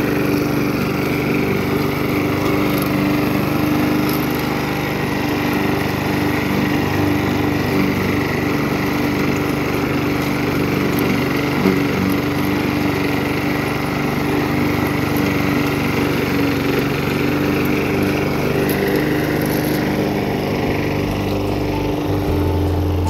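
Gasoline walk-behind lawn mower engine running steadily at a constant pitch.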